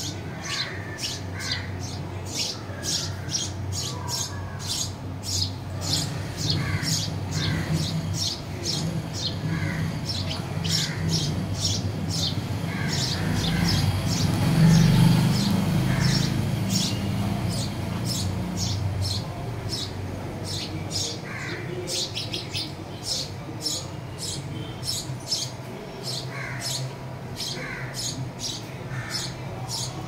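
Small birds chirping: a steady run of short, sharp, high chirps, about two a second. A low hum underneath swells about halfway through.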